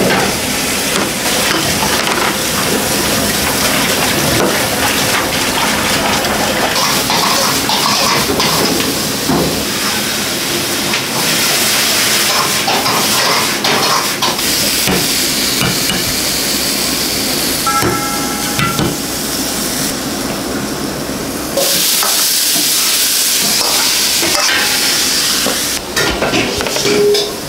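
Busy restaurant kitchen: food sizzling on a hot pan over the range, with metal plates and utensils clattering. The sizzling grows louder about three-quarters of the way through.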